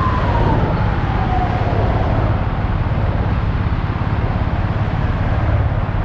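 A siren wail sounded by a private car: one faint tone slides downward over the first two seconds or so and fades. Under it is a loud, steady rumble of road, wind and engine noise from a moving motorcycle.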